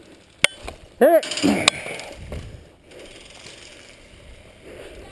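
A sharp click, then a loud, short shout that falls in pitch about a second in, with a second click right after it; then steady rustling and rattling of kit as the wearer moves across grass.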